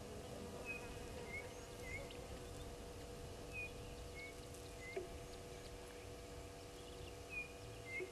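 A bird calling a short three-note phrase, repeated three times about three seconds apart, over a steady background hum.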